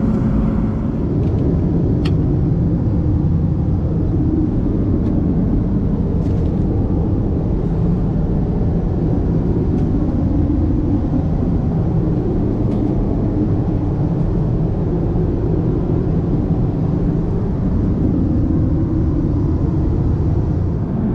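Steady low rumble of an Airbus A330-200 in cruise, engine and airflow noise heard from inside the cabin, with a few faint clicks.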